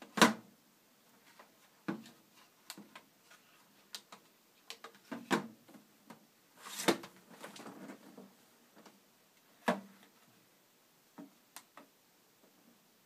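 Handling of a plastic lightbar and its push-button controller on a table: scattered sharp clicks and knocks, the loudest just after the start, with a stretch of rubbing and rattling about seven seconds in as the bar is moved.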